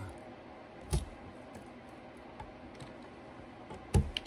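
A few sharp clicks and taps, one about a second in and a quick cluster near the end, from a multi-tool blade and copper wire ends knocking in an electrical box while insulation is stripped off the wires.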